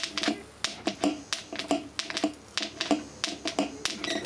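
Brushed electric motor being burned out on an overloaded mains supply, giving out irregular sharp snaps and crackles, several a second, each with a short buzz: electrical arcing in the failing motor.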